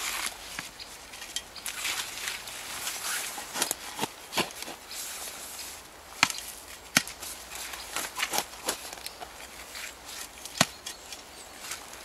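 Small metal hand shovel digging into loose forest soil: repeated scrapes and scoops, with scattered sharp clicks of the blade and soil tipped into a plastic bucket.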